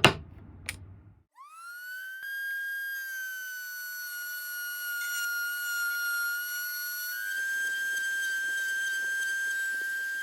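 A high-speed power tool motor spins up with a quickly rising whine about a second in, then runs at a steady high-pitched whine. A faint crackle is heard under the whine in the second half.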